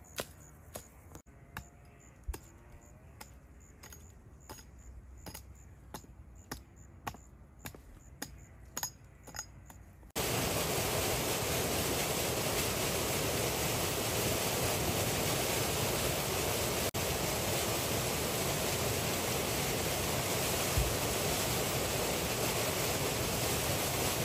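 Sharp chopping blows into a sapling's wood, irregular, about one or two a second. About ten seconds in, they give way suddenly to the steady, loud rush of a fast spring-fed stream.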